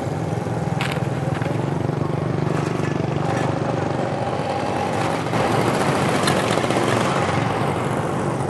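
An engine running steadily, getting a little louder about five seconds in.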